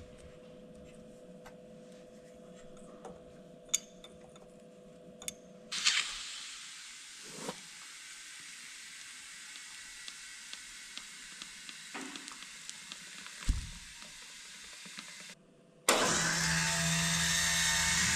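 Faint steady hum with a few light ticks, then compressed air hissing steadily through a tire inflator into a flat truck tire for about nine seconds. Near the end a much louder machine runs with a low steady hum and cuts off suddenly.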